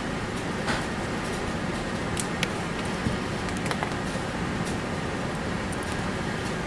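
Steady room hum with a few faint clicks and taps from a hand leather punch being worked on a Velcro strap.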